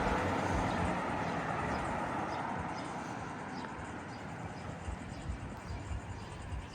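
Street traffic: a passing motor vehicle fades away over the first few seconds. Then the walker's own footsteps on the pavement come through, about two a second.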